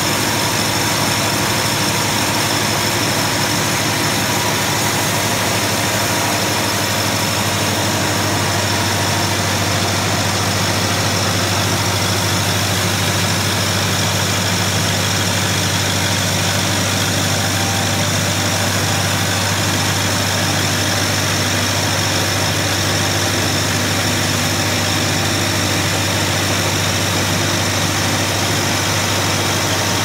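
Engine of a portable band sawmill running steadily, with the saw not cutting: a constant low hum that does not change.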